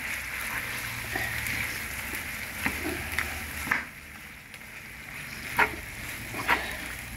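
Pieces of fish sizzling as they fry in sauce in a frying pan while a metal spoon stirs them, with a few short knocks of the spoon against the pan. The sizzle gets quieter a little before halfway through.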